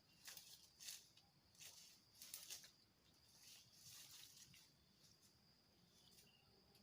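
Near silence in the open air: a few faint, brief rustles in the first three seconds, then a faint, steady, high-pitched tone.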